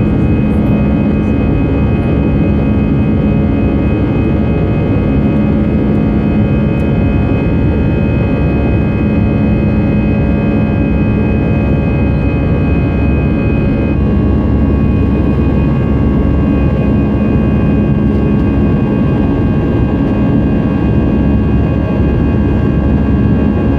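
Jet engines of an Airbus A320-214 (CFM56) heard inside the cabin: a steady loud rush with several steady whining tones, some of which shift in pitch about halfway through.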